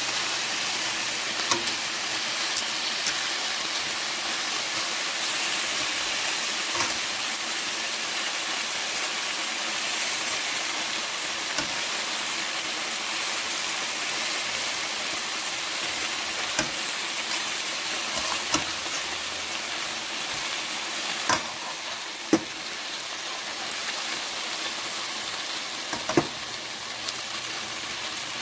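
Chicken wings sizzling steadily in oil as they brown in a stainless steel pan, with occasional clicks of metal tongs against the pan as the pieces are turned; the sharpest clink comes about three-quarters of the way through.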